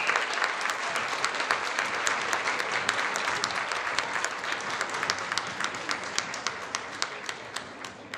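Audience applause, dense clapping that slowly thins and fades out near the end.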